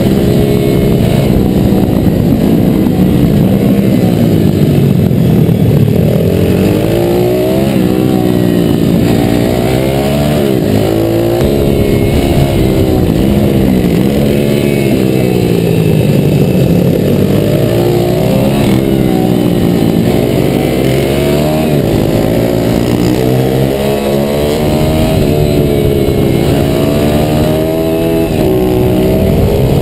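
Pit bike's YX140 single-cylinder four-stroke engine ridden hard on track, heard from on board: the revs climb and fall again and again as the rider accelerates and backs off, over a steady rush of wind on the microphone.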